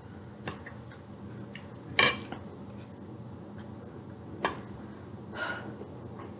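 Cutlery clinking against a plate a few separate times, the loudest clink about two seconds in with a short ring, over a faint steady low hum.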